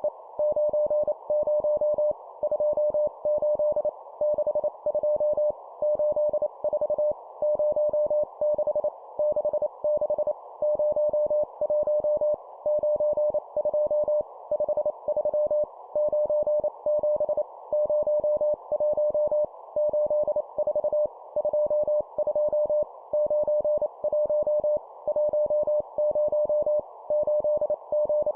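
Morse code at 25 words per minute: a single steady tone keyed rapidly on and off in dots and dashes over a soft hiss, spelling out number words, with short pauses between the words.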